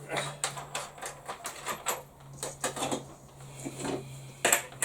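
A run of quick, irregular clicks and taps from small hard objects being handled on a workbench, the loudest one near the end, over a steady low hum.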